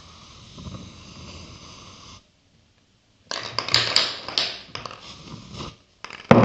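A squeezed plastic bottle of colouring sputtering out air for about two seconds. After a short pause come scratchy handling and rubbing noises, then a sharp knock near the end.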